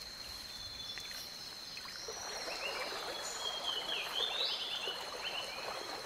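Tropical wetland ambience: a steady high-pitched insect drone over a soft wash of background noise, with a cluster of short chirping animal calls about three to five seconds in.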